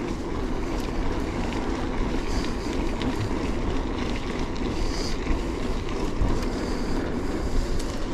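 Mountain bike tyres rolling over a gravel path, a steady rumble of tyre and frame noise with wind on the microphone.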